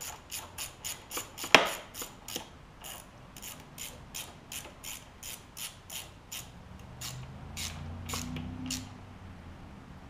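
Hand ratchet wrench clicking in quick, even strokes, about four clicks a second, as a fuel pump mounting bolt is run in. One sharper clack comes about one and a half seconds in, and the clicking thins out toward the end.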